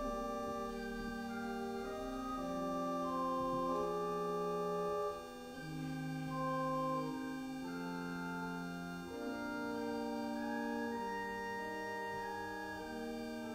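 Organ playing slow, sustained chords that change every second or two.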